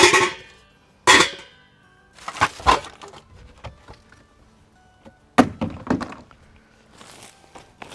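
Stainless steel cooking pots clanking and knocking against each other as they are set into a cardboard box, followed by a few dull knocks and rustling as bags are handled.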